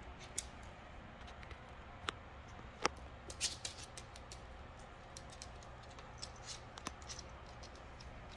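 Kittens pawing and clawing at a corrugated-cardboard scratcher toy with balls inside it: scattered scratches, taps and clicks, the sharpest about three seconds in.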